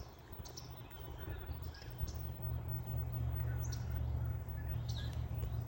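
Birds chirping in short high calls, a few times a second or so, over a low steady rumble that gets louder partway through.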